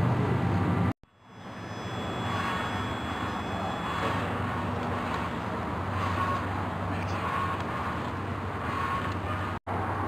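Steady low hum and hiss of room background noise with no clear event in it. It cuts out abruptly about a second in, fades back up, and drops out again for an instant near the end.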